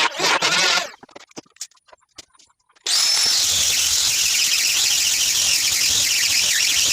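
An electric power tool working wood: it cuts off about a second in, a few light clicks and knocks follow, then it starts again with a brief rising whine and runs steadily with a loud, high-pitched whine.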